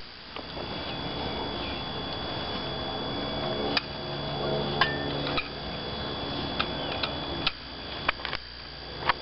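Sharp metallic clinks and knocks at irregular intervals, mostly in the second half, from a hand-driven steel soil gas probe and its drive handle being handled and struck. A steady low hum runs underneath.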